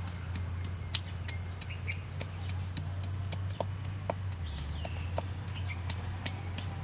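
Wooden pestle pounding in a wooden mortar: short, irregular wooden knocks, roughly one or two a second.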